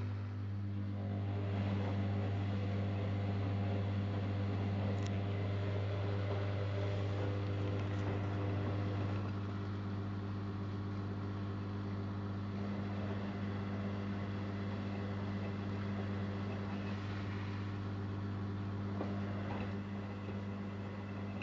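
Zanussi Jetsystem Turbodry ZWD 1000 washer-dryer running, with a steady deep motor hum under an even rushing noise.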